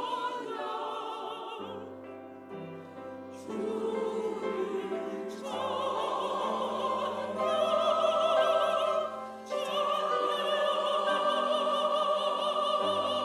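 Church choir singing a sacred anthem in harmony, with sustained chords and broad vibrato in the upper voices. From about ten seconds in it holds one long, loud chord.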